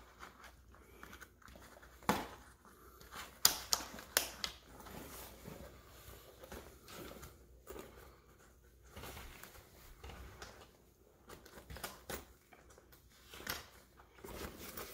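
Rustling of a fabric shopping bag and clicking of plastic clips as the bag is fitted onto a rollator frame by hand, with a few sharper clicks about two to four seconds in.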